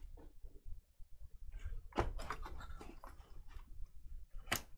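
Trading cards and packs handled on a table: small clicks and rustles, with a sharp knock about two seconds in and a louder one near the end.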